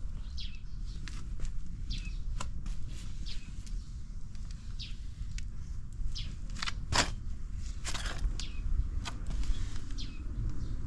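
Small birds chirping repeatedly over a low, steady rumble, with a few sharp clicks.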